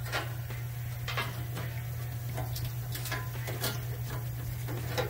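Scattered light metal clicks and clinks of a hand wrench working the nut on a truck's exhaust pipe clamp, a few each second, over a steady low hum.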